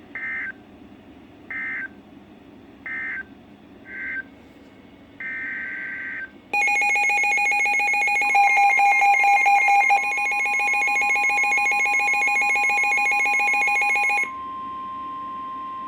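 Emergency Alert System tones. First come short bursts of warbling SAME digital data, then about six and a half seconds in the loud, steady EAS attention signal. Another steady alert tone joins soon after and carries on alone when the louder tones cut off near the end.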